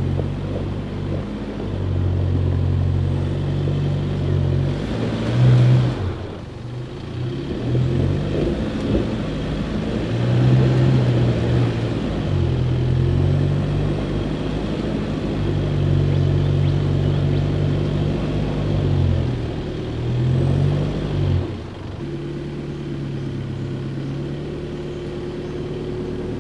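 Four-wheel drive's engine revving up and down as it crawls up a rutted, slippery clay hill climb, the revs rising and falling every few seconds. About three quarters of the way in it settles to a steadier, lower note.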